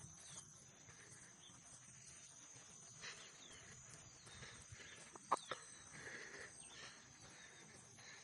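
Faint countryside ambience: a steady high insect drone with a few short, falling bird chirps, and a single sharp click about five seconds in.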